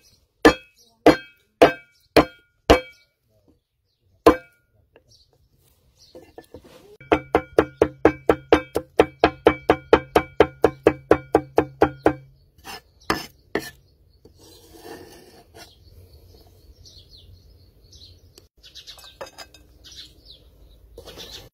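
Cleaver chopping garlic on a wooden chopping board, each stroke with a short metallic ring from the blade: a few single chops about half a second apart, then a fast, even run of about five chops a second for some five seconds, and three last chops. Only faint sounds follow for the last several seconds.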